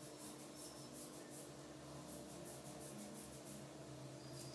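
Fingertips rubbing and scratching through thick long hair at the scalp: faint, quick scratchy strokes several times a second, thinning out after about a second and a half, over a steady low hum.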